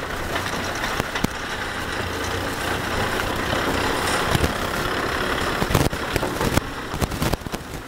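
Kubota M6040SU tractor's four-cylinder diesel engine running steadily as the tractor drives slowly past close by, pulling a trailer, with several sharp knocks over the engine noise in the second half.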